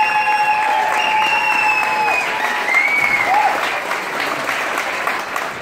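Audience applauding, with a few long held calls from voices over the clapping in the first few seconds.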